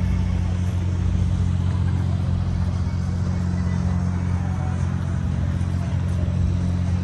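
City street ambience dominated by a steady low hum from a motor vehicle engine running, unchanging throughout.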